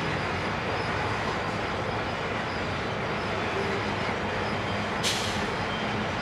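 Loaded coal hopper wagons rolling slowly past on steel wheels, a steady rumble, under the low steady drone of 82 class diesel locomotives hauling a second coal train on the track behind. A short hiss about five seconds in.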